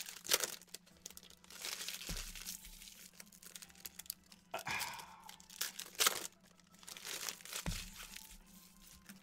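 Hands tearing open and crinkling the plastic wrappers of trading-card packs, with the rustle of cards being handled. There are two soft low thuds, about two seconds in and late on.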